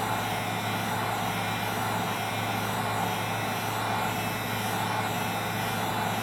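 Heat gun running steadily with a low hum and a rush of blowing air, as it heats a wet phone to evaporate the alcohol inside.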